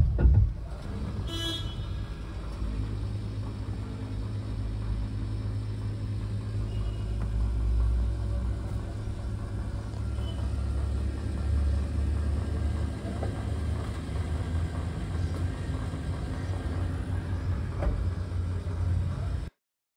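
Steady low rumble of an idling vehicle engine, after a couple of loud knocks at the very start. The rumble cuts off abruptly near the end.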